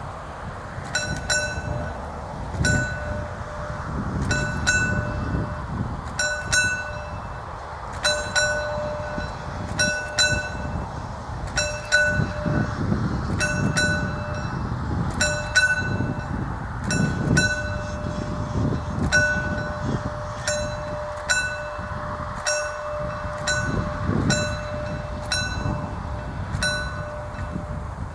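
Level-crossing warning bell (předzváněč) of mechanical crossing barriers ringing in repeated strokes, about one stroke or quick double stroke a second. It warns that the barriers are about to be lowered for an approaching train, and they begin coming down near the end.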